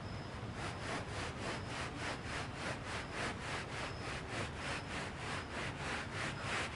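Rapid back-and-forth scraping strokes over freshly poured wet concrete, about four a second, starting about half a second in.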